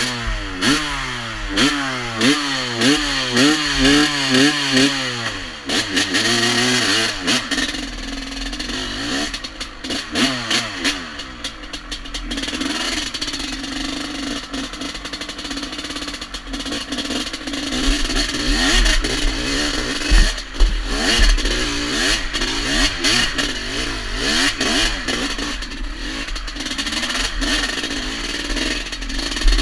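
Small motorcycle engine being ridden hard over a bumpy track, its note swinging up and down about once a second for the first five seconds as the throttle is worked, then a jumbled rising and falling engine sound with clattering and low rumble.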